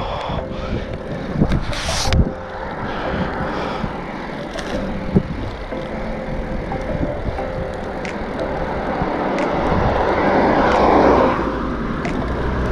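Steady road and wind noise with traffic. A vehicle passes on the wet road, swelling and fading about ten to eleven seconds in.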